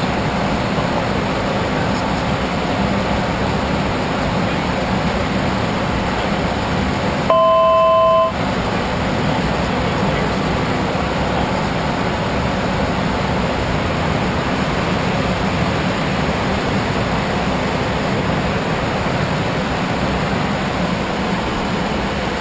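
Steady rushing cabin noise inside a private jet's cockpit in flight, airflow and engine noise heard through the cockpit. About seven seconds in, a one-second electronic tone with several steady pitches sounds over it and stops abruptly.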